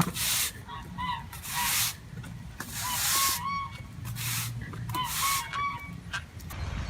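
Farm birds calling in short, paired honking notes three times, between repeated bursts of rushing noise.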